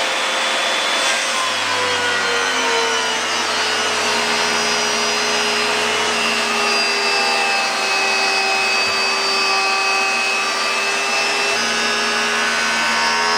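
Makita 2020 jointer running with a Byrd Shelix helical segmented cutter head, planing a light 0.01-inch pass off a knotty hard white maple board. The cut is loud and continuous. The machine's steady tones sag slightly in pitch from about two seconds in and rise again near the end.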